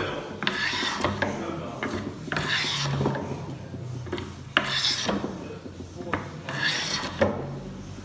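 Hand plane shaving a wooden board in repeated push strokes, one every second and a half to two seconds. Each stroke is a rasping swish of the blade cutting a shaving, several of them opening with a sharp click.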